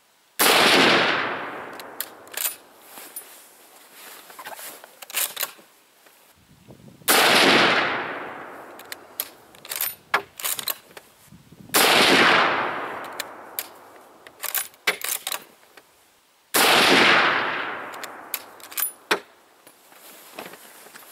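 Four rifle shots from a Mosin-Nagant 91/30 bolt-action rifle in 7.62x54R, spaced about five to seven seconds apart. Each is a sudden loud report that dies away in a long echo. Sharp metallic clicks come between the shots as the bolt is cycled.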